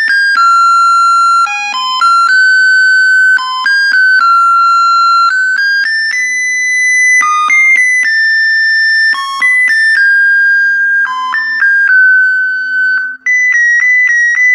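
Homemade BC547 melody doorbell circuit playing its tune through a small speaker: a simple one-note-at-a-time melody of high, steady electronic tones that step from note to note, with a brief break near the end.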